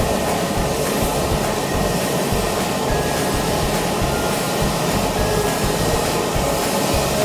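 Steady rush of sewage water through a manhole channel as a high-pressure drain jetting hose works in the pipe, over a constant mechanical rumble.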